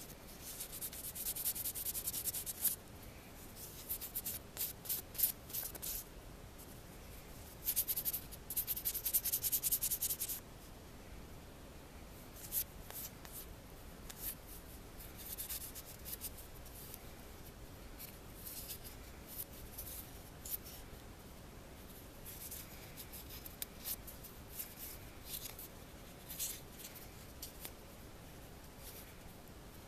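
Polishing pad rubbed briskly over copper jewelry to buff it: scratchy rubbing in bursts, heaviest in the first ten seconds, then lighter short strokes. The buffing takes the dark liver-of-sulfur patina off the high spots for an antiqued finish.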